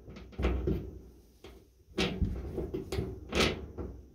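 Worn aftermarket dryer drum support roller being pushed and turned by hand on its shaft, clunking and knocking several times, loudest near the end. The roller has worn out of round.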